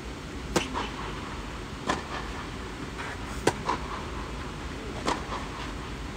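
Tennis rally: rackets striking the ball in sharp pops about every one and a half seconds, most followed by softer knocks of the ball, over a steady low background noise.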